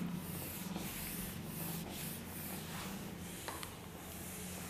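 Handheld whiteboard eraser rubbed across a whiteboard in repeated wiping strokes, a faint scrubbing hiss.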